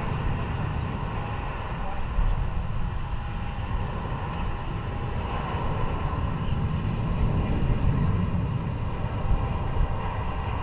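Jet airliner engines running at a distance, a steady rumble with a hiss over it.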